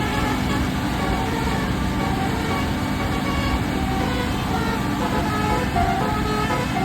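Bus basuri 'telolet' horn playing a tune in short tooted notes of changing pitch, over the steady running of the bus's engine.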